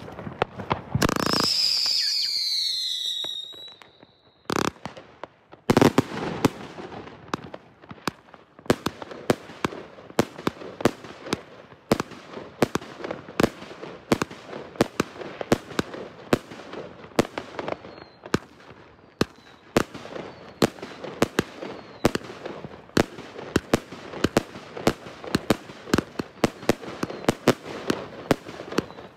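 Surex SFC193 "5 in 1" firework combination cake. It opens with a loud hiss carrying a falling whistle for a few seconds. After two sharp reports it fires a steady, rapid run of shots, about two or three a second, with the bursts popping overhead.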